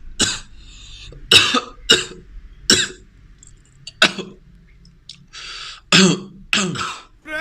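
A person coughing repeatedly, about seven separate coughs spread over several seconds.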